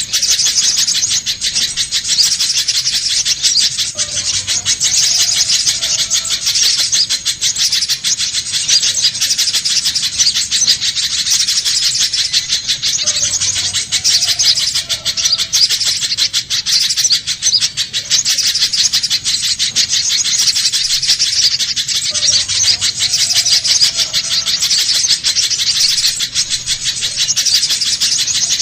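Recorded spiderhunter (pijantung pisang) song played as a bird lure: a loud, continuous stream of fast, sharp, high chirping notes. The recording is looped, repeating about every nine seconds, with a faint lower call recurring on each pass.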